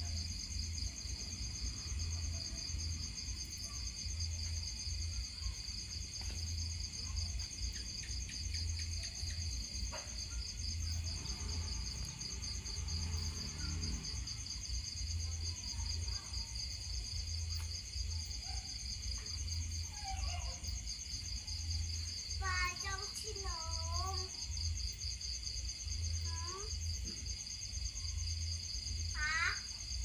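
Night insect chorus: crickets trilling steadily and high-pitched, with a fast pulse, over a low pulsing rumble. A few short wavering calls break in about two-thirds through and again near the end.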